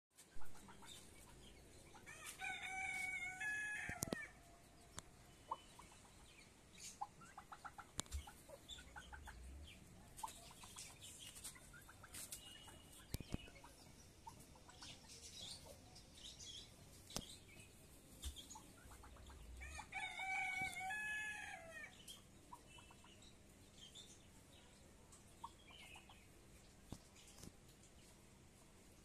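A rooster crowing twice, each crow about two seconds long: the first a couple of seconds in, the second about two-thirds of the way through. In between are scattered short clucks and chirps from the penned fowl.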